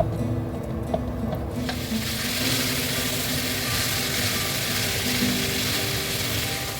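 Food sizzling as it fries in a hot pan, with the sizzle starting about a second and a half in and holding steady, over soft background music.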